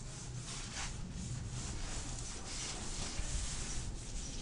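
Irregular scraping and rubbing against the rough masonry of an opened wall crack, worked by hand.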